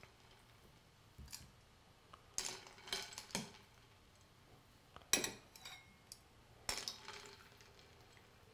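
Metal kitchen tongs clinking against a glass bowl and the ice cubes in it as tomatoes are lifted out of ice water: a handful of separate sharp clinks and knocks, the loudest about five seconds in.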